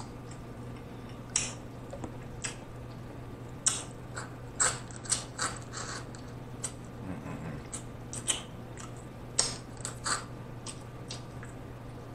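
Close-miked wet mouth sounds of eating snow crab meat by hand: irregular lip smacks, chewing and finger-sucking clicks, about a dozen sharp ones spread unevenly, over a low steady hum.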